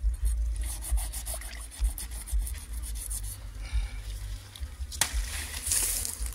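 Knife cutting and scraping through the skin and belly flesh of an African lungfish in quick, rasping strokes, over an uneven low rumble. A sharp crack about five seconds in is followed by a brief loud hiss.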